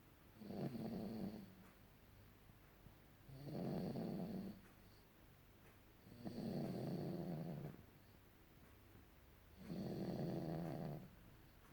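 A seven-month-old baby snoring softly and evenly, four snores about three seconds apart.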